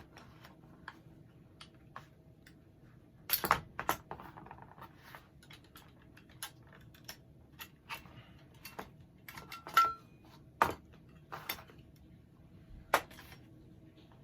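Metal clicks and clinks of an SKS rifle's trigger group being worked out of the receiver and handled, with a few sharper knocks and one short metallic ring. The loudest knocks come about three and a half, ten and thirteen seconds in.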